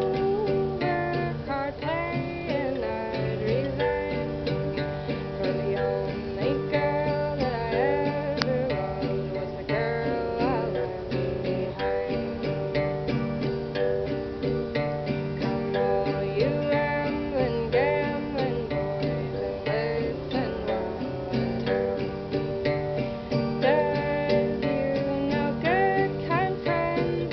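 Live acoustic guitar strummed steadily, with a singing voice carrying a melody over it.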